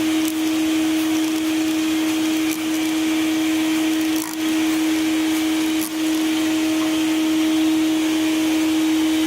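Shop vac switched on and running steadily with a constant whine, blowing air into a car's exhaust to pressurize it for a leak test. It dips briefly a few times.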